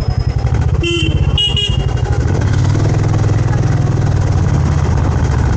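Road traffic at a bus terminus: a steady low engine rumble, with a vehicle horn honking twice in quick succession about a second in.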